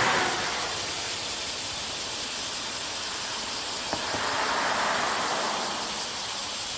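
Rushing noise of a 103 series electric train running past a level crossing, with a single click about four seconds in and a swell of hiss that follows it.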